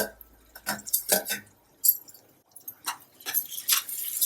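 A spoon clinking and knocking against a cooking pot in short, irregular strikes, as tomatoes are added and stirred into fried onions.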